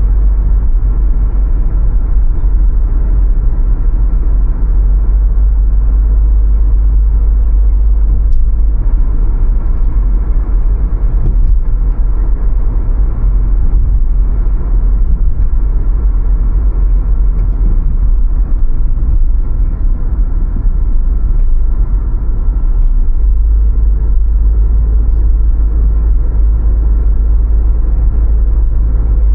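Car driving along a city street: a loud, steady low rumble of road and engine noise with tyre noise over it.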